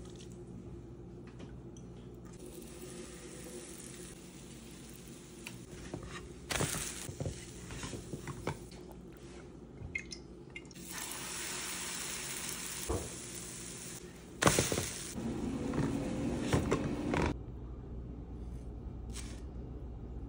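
Cooking sounds at a frying pan: stretches of sizzling with a few sharp clinks and knocks of utensils against the pan. A low steady hum runs underneath.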